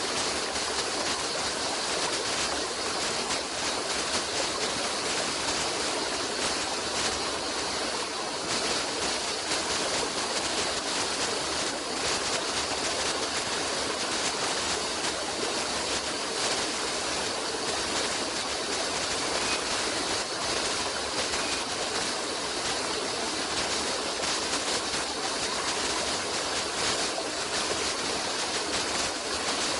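A stream of running water flowing steadily and evenly.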